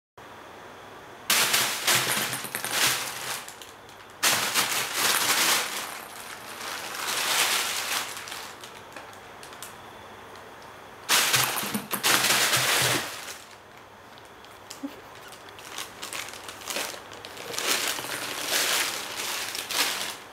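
A thin plastic bag crackling and rustling in several loud bursts as a cat scrambles under and onto it, with quieter pauses in between.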